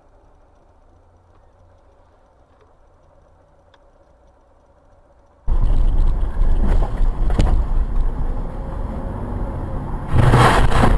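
Dashcam recording from inside a moving car: a faint low road rumble, then about halfway in much louder engine and road noise with a few knocks. Near the end a loud blast goes off: an explosion in the street ahead.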